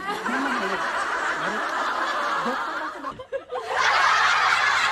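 Audience laughter, a long swell of many people laughing that drops away briefly about three seconds in and then rises again.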